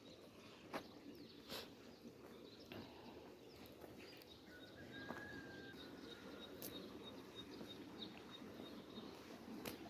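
Faint outdoor ambience with a short bird-like whistle about halfway through and a thin, high, rapidly pulsing chirp in the second half, with a few soft clicks.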